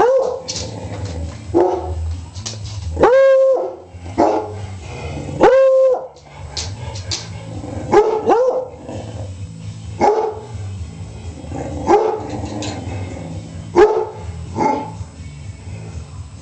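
Dogs barking, a bark every second or two, with two longer held barks that rise and fall like short howls a few seconds in.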